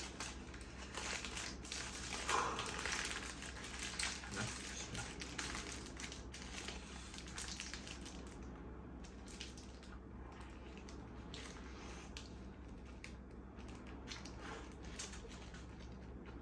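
A person biting into and chewing a burger benjo (a Malaysian egg burger) close to the microphone, with crinkling of its paper wrapper. The crackling and crunching sounds are busier in the first half, then thin out to softer chewing clicks.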